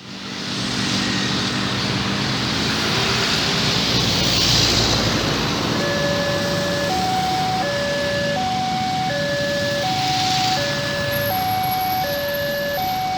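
Railway level-crossing warning siren starting about six seconds in, alternating between a low and a high tone about every three-quarters of a second, warning that a train is approaching. Under it is steady road traffic noise that swells twice as vehicles pass.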